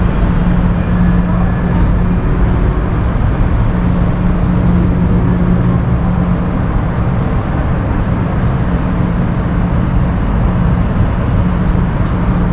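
Steady road-traffic noise: a constant engine hum with a low rumble.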